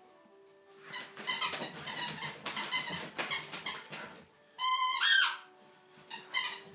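A dog playing with a squeaky toy: a run of short scuffing noises for about three seconds, then one long, loud squeak about four and a half seconds in and a shorter squeak near the end.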